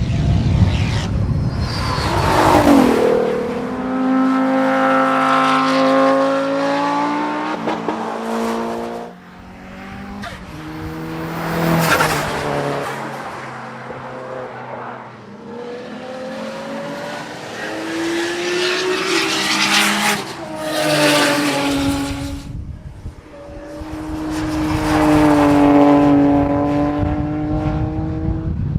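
Performance cars driving hard on a racetrack: engines revving high and dropping back through gear changes as cars pass several times, each pass swelling loud and fading.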